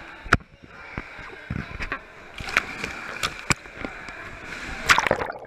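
Pool water splashing and sloshing against a waterproof camera held at the surface, with a series of sharp splashes and slaps. The loudest splash comes near the end.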